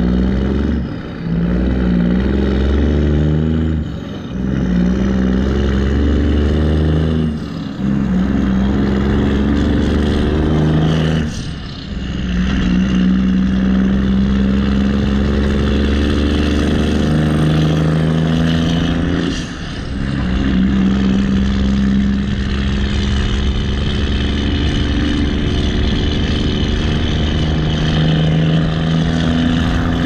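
A backhoe's diesel engine pulls the machine along the road. It eases off briefly about five times in the first twenty seconds, as at gear changes, then runs steadily.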